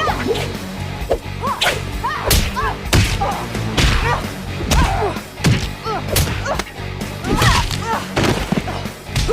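Cartoon fight sound effects: rapid whooshes of swings and sharp punch and kick impacts, several every second, over background score.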